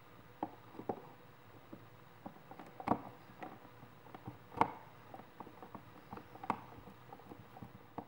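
Screwdriver backing out the mounting screws of a duplex wall outlet: irregular small clicks and scrapes of the tip working the screws, the sharpest about three and four and a half seconds in.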